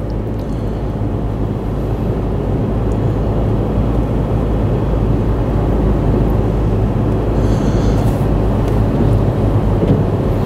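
Steady road and engine noise inside a moving car's cabin, a low rumble that grows a little louder over the stretch.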